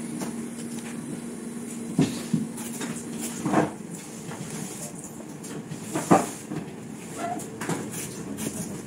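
A Vivo V25e smartphone being handled on a rubber repair mat: a few sharp knocks and taps as hands press on and grip its back glass panel, the loudest about six seconds in. A steady low hum stops about two seconds in.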